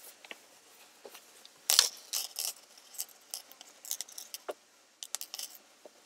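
Small metal chain on a Tensa Zangetsu replica sword's hilt jingling and clinking irregularly as the sword is moved, with the loudest clink a little under two seconds in.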